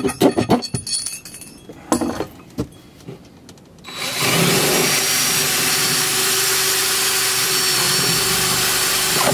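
A few clicks and knocks, then about four seconds in a cordless drill starts and runs steadily, boring a long bit through the plastic wall of a cooler.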